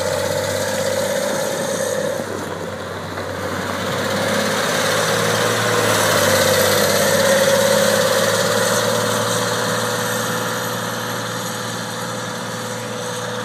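Caterpillar 970F wheel loader's six-cylinder diesel engine running as the loader drives, with a steady whine over the engine note. It grows louder as the machine passes close, about halfway through, then fades as it drives away.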